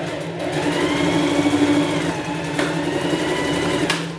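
Electric sewing machine stitching, its motor speeding up and then easing off. There are two sharp clicks in the second half, and then the machine stops suddenly.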